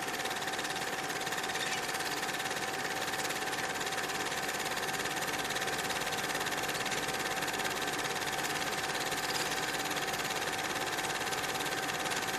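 A steady mechanical whirr with a rapid fine clatter and a constant whine.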